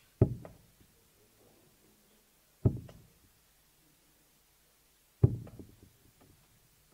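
Three steel-tip darts striking a Winmau Blade 6 bristle dartboard one after another, about two and a half seconds apart. Each hit is a sharp knock with a smaller click just after it and a short tail.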